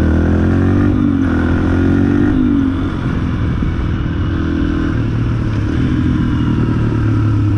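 Yamaha dirt bike's engine under way on a gravel trail. Its pitch climbs and drops back twice in the first few seconds as the rider changes gear, then it runs steadier and a little quieter.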